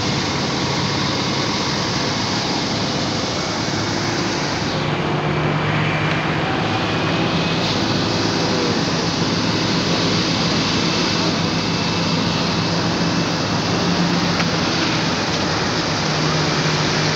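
Steady outdoor din of vehicle engines and road traffic, a continuous rushing noise with a low engine hum underneath.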